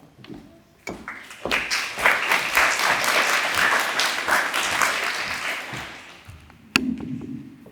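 Audience applauding: clapping builds about a second in, holds, then dies away, with a single sharp knock near the end.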